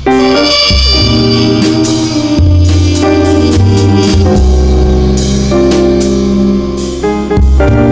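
Trumpet playing a mellow tune over a backing groove of drums and deep bass notes.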